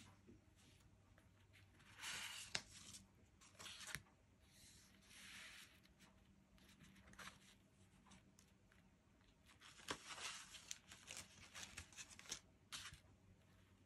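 Faint rustling and sliding of cardstock greeting cards as they are opened, folded shut and moved across a wooden tabletop, in several short swishes with a few light taps.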